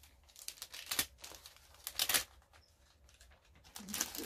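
Clear plastic magazine bag crinkling and rustling as a cardboard backing board is slid into it, in several short rustles about a second apart.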